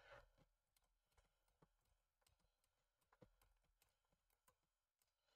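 Near silence, with faint scattered clicks and taps of hands fitting small parts onto a model truck's chassis beam.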